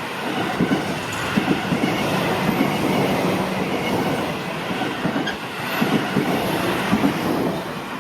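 A Seibu 30000 series electric train passing over a level crossing: a steady rush of wheel-and-rail noise with irregular knocks. The noise falls away sharply near the end as the train clears the crossing.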